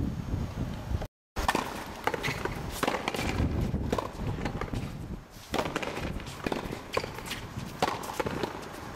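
Frontenis rally: the small rubber ball struck by rackets and slapping off the front wall and concrete floor in quick, irregular knocks, with shoes scuffing on the court. A brief dropout to silence about a second in.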